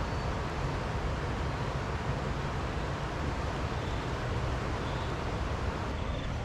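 Steady rush of fast-flowing floodwater, with wind rumbling on the microphone.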